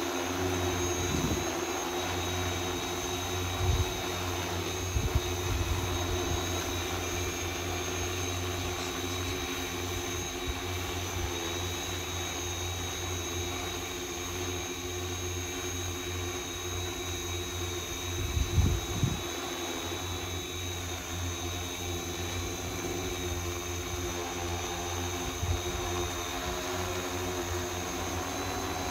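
Agricultural spraying drone hovering, its multirotor propellers giving a steady hum of several tones. A short low rumble comes about two-thirds of the way through.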